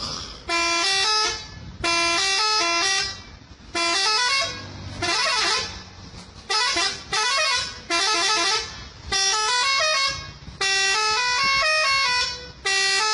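Multi-tone musical truck horn of the Indonesian 'telolet' kind, sounded in about nine short blasts. Each blast is a quick tune of notes stepping up and down in pitch.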